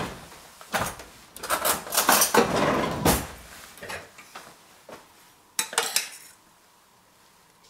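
Metal spoon and stainless saucepan clinking and clattering as the pan of cream sauce is handled and lifted off the gas hob's grate: a run of clatter in the first three seconds, single knocks around four and six seconds in, then it goes quiet.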